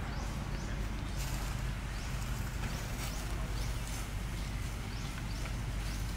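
Outdoor ambience: a steady low rumble with short, high rising chirps that recur every half second to a second.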